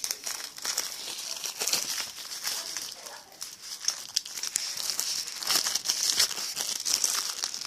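Plastic shrink-wrap being torn and peeled off a new DVD case, a dense run of crinkling and crackling.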